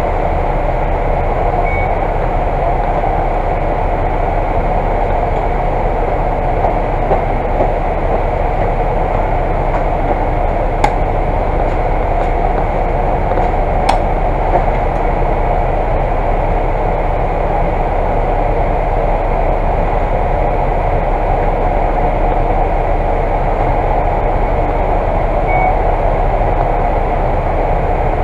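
The diesel engine of a Volvo Super Olympian double-decker bus idles steadily while the bus stands still, heard from inside the bus. Two brief clicks come about halfway through.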